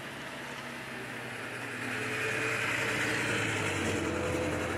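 A motor vehicle's engine running with road noise, growing louder about two seconds in.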